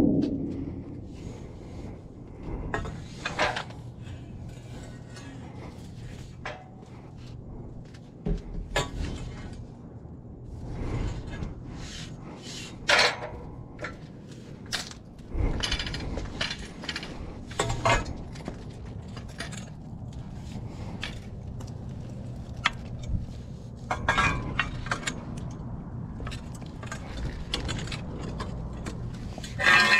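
Hard scrap items clinking and clanking as they are rummaged through and knocked together, in irregular bursts with a few louder clanks, over a steady low hum.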